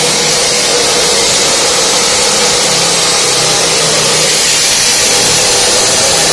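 Diamond concrete-cutting saw running steadily through reinforced concrete: a loud, continuous grinding hiss over a constant motor hum.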